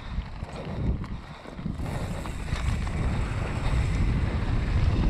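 Wind buffeting the microphone of a mountain bike rider's GoPro, with a low rumble and small rattles from the bike rolling over a dirt ridge trail; the rush grows louder about two seconds in.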